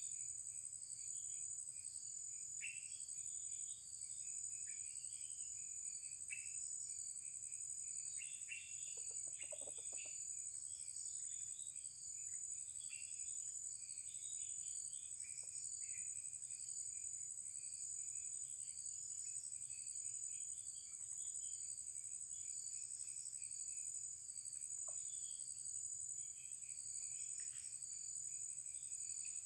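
Steady high-pitched drone of insects with scattered bird chirps over it, and one brief lower call about nine seconds in.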